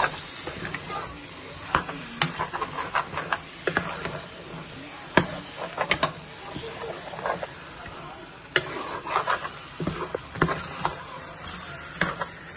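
Metal spoon stirring marinated chicken pieces in a metal pot on the hob, with sharp irregular clinks and scrapes of the spoon against the pot over a steady sizzle of the chicken cooking in its spiced oil.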